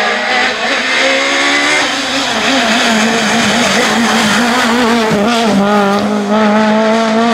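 Citroën Saxo rally car's four-cylinder engine at full attack as it approaches and passes: the note climbs in steps through quick gear changes in the first couple of seconds, then holds at high revs with a wavering pitch, dipping briefly about five seconds in.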